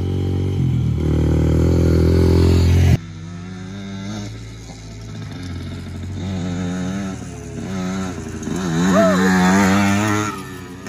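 Dirt bike engines revving. A loud, steady engine note cuts off abruptly about three seconds in. Then an engine rises and falls in pitch again and again as the rider works the throttle, loudest near the end as a vintage two-stroke Yamaha DT100 trail bike passes close by.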